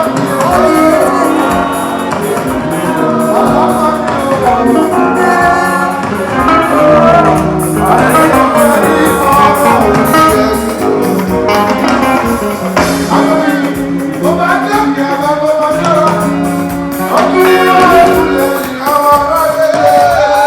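Band music with a singing voice over guitar and other instruments.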